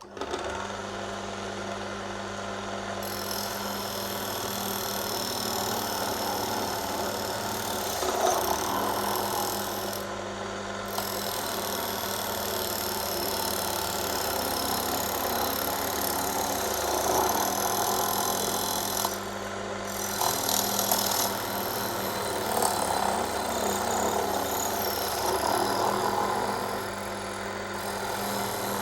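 Metalworking lathe running with a steady motor hum while the cutting tool takes a thin cut off a brass disc, the cutting noise swelling and easing several times as the tool is fed.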